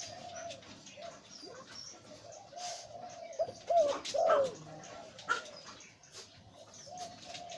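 A male zebra dove of the 'liew-tan' song type, a breeding bird, cooing in short rolling notes. The louder notes come about four seconds in.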